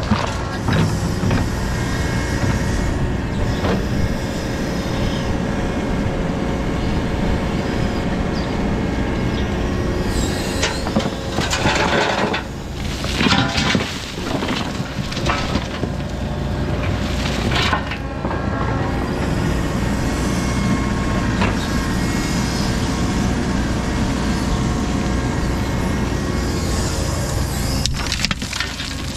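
Excavator engine running steadily while its bucket tips gravel into a wooden-decked trailer. The gravel spills and rattles onto the load in several heavy pours through the middle.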